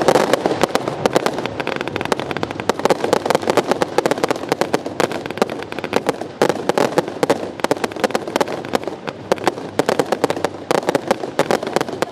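Fireworks going off: a dense, unbroken run of sharp pops and crackles, many a second.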